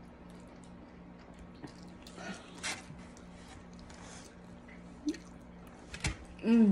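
A person chewing soft baked sweet potato close to the microphone, with soft wet mouth sounds and a few small clicks over a faint steady hum. Near the end comes a short, louder voiced "mm" of enjoyment.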